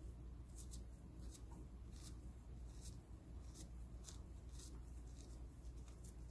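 Oyster mushroom clusters being torn apart by hand: faint, irregular crisp crackles and soft rustling as the stems split.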